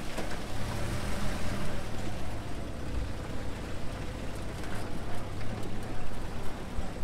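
Willys flat-fender Jeep running, a steady low engine hum under a rushing noise.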